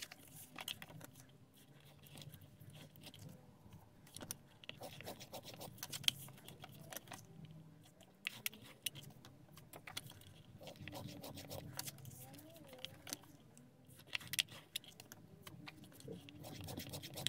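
Faint handling of folded card-stock pages on a scoring board: scattered light taps and clicks, with paper sliding and rustling as the creased pages are pressed flat and moved.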